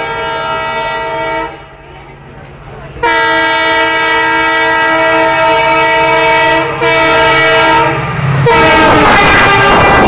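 EMD WDP-4B diesel locomotive's dual-tone horn sounded in long, continuous blasts as it approaches at speed: one blast cuts off about a second and a half in, and a longer one starts about three seconds in, with a brief break near seven seconds. Near the end the locomotive rushes past at about 110 km/h, its noise loudest there, and the horn's pitch drops as it goes by.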